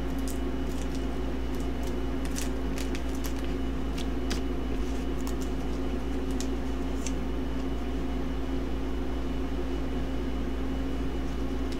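A steady low hum runs under a scatter of short, crisp snips and crinkles in about the first seven seconds: scissors cutting open a foil trading-card booster pack and the cards being slid out and handled.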